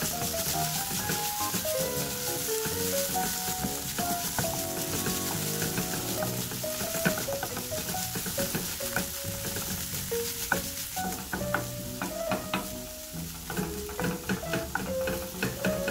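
Shredded cabbage and carrot sizzling in a hot nonstick frying pan while a wooden spatula stirs and scrapes through them. The sizzle is stronger in the first half; in the second half the spatula taps and knocks against the pan more often.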